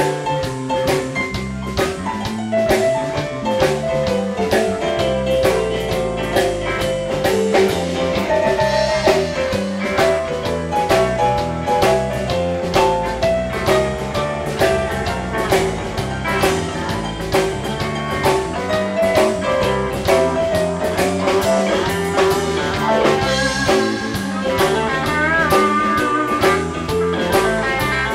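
Live blues band playing, with a steady drum-kit beat under bass and a melodic lead line.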